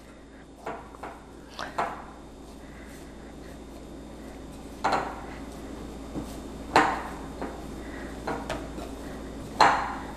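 Hands kneading a ball of pizza dough in a glass mixing bowl: scattered soft knocks and thuds as the dough is pressed and pushed against the glass, with the loudest knock near the end.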